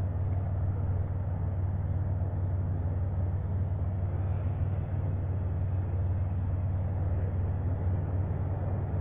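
Sky Viper S1700 toy quadcopter drone's motors and propellers running steadily, a constant low hum with a rushing haze above it.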